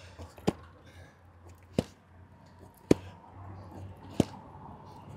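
Rolled canvas banner being unrolled across concrete, with four sharp ticks a little over a second apart as the roll turns over.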